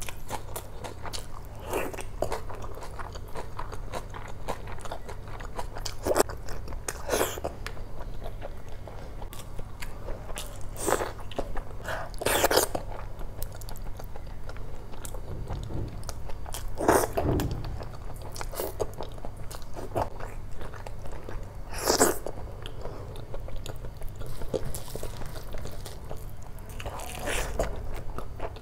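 A person chewing mouthfuls of rice and egg curry eaten by hand, picked up close on a clip-on microphone: a steady run of small chewing clicks, with a louder mouth sound every few seconds.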